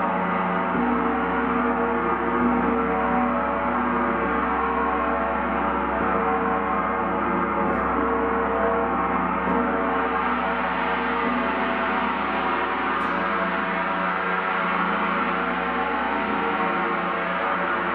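Gong played continuously: a steady, dense wash of many overlapping ringing tones, with no single strike standing out.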